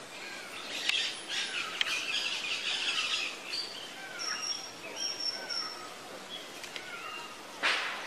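Birds calling in the trees, parakeets among them: a short falling chirp repeated about every half second, harsh raspy chatter in the first few seconds, and one loud screech near the end.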